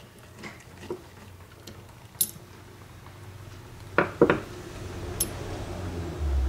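Small metal clicks and taps from a Stihl 036 chainsaw carburetor being taken apart with a screwdriver, with two sharp knocks close together about four seconds in as the carburetor body is handled. A low rumble builds near the end.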